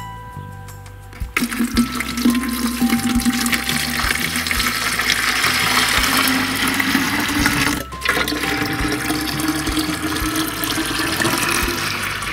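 Water poured from a jug into a tall plastic aquarium tank, splashing and gurgling into the water already in it. The pour starts about a second and a half in, breaks off briefly near eight seconds, and starts again.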